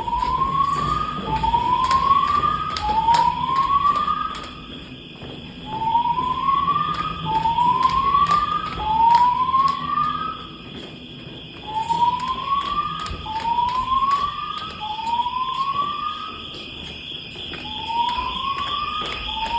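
Hotel fire alarm sounding: loud rising whoop tones, three in a row, then a short pause, over a steady high tone. The three-pulse pattern is the standard temporal-three evacuation signal.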